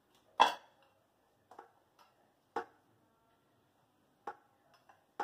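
A few sharp knocks and clinks of hands and dough against a stainless steel plate while stiff buckwheat-flour dough is kneaded and gathered up; the first knock, about half a second in, is the loudest and rings briefly, with four or five lighter ones spread over the rest.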